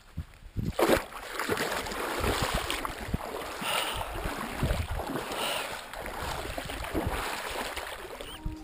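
Water sloshing and splashing around an action camera held at the surface of a shallow river, with irregular splashes.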